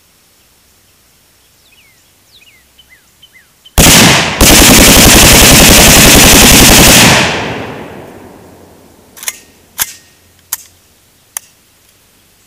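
A 5.45×39mm AKS-74U (Krinkov) short-barrelled carbine firing full-auto with its muzzle booster removed: a short burst about four seconds in, a brief pause, then a long burst of about three seconds, loud enough to clip the recording, with its echo dying away over the next second. A few sharp clicks follow near the end.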